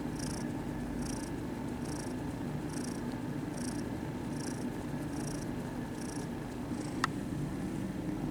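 Kitten purring steadily, close up, under a faint high swish that repeats a little more than once a second, with one sharp click about seven seconds in.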